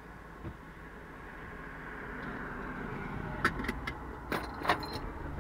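Car sound: a steady vehicle noise that slowly grows louder, with a quick cluster of sharp metallic clicks and jingles near the end.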